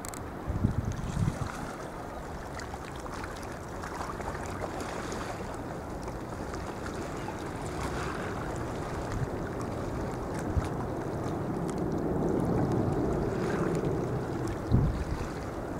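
Harbour water lapping, a steady wash that slowly grows louder, with wind buffeting the microphone in a few low thumps about a second in and again near the end.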